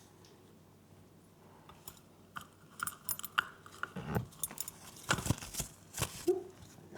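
Quick clicks, taps and light rattles of small conures moving about in a bird carrier and handling it, sparse at first and getting busier after about two seconds, with a few soft thumps.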